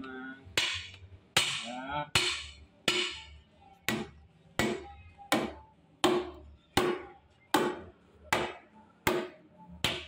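A hammer repeatedly striking a steel log dog, a rebar hook set into a log. There are about thirteen evenly spaced blows, roughly one every three-quarters of a second, each with a short metallic ring.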